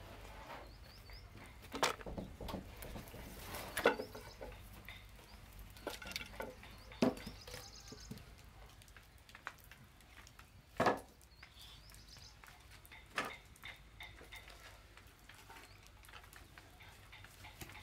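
Wooden boards knocking and clattering as they are handled and laid over a wood fire, as a handful of separate sharp knocks, the loudest about eleven seconds in. A few short high chirps sound between them.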